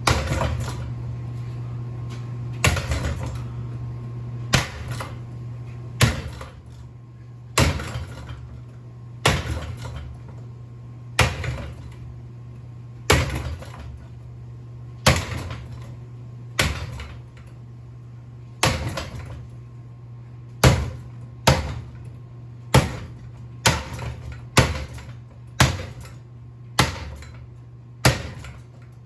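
A ceiling fan being smashed: a series of about twenty hard blows, each a sharp crack with a brief ring. They come every second or two and get quicker toward the end, over a steady low hum.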